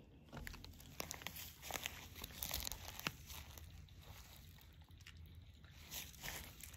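Faint rustling and scattered soft clicks with no steady rhythm: handling noise.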